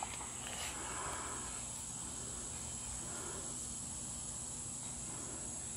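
Faint, steady, high-pitched chirring of insects, unbroken throughout.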